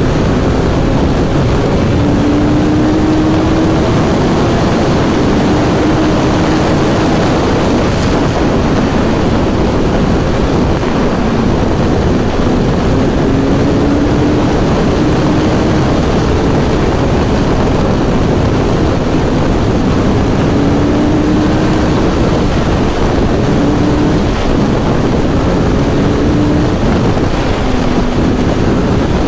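Kawasaki Z1000SX (Ninja 1000) inline-four engine running at highway cruising speed, its pitch gently rising and dipping, under heavy wind rush on the microphone.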